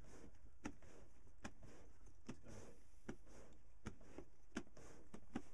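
Leather bag bellows pumped at an even pace, forcing air into a turf-capped charcoal pit furnace: faint rushes of air with a soft tick about every three-quarters of a second.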